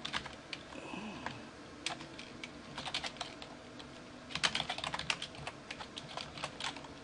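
Computer keyboard typing: runs of keystroke clicks, with a quick flurry about four and a half seconds in.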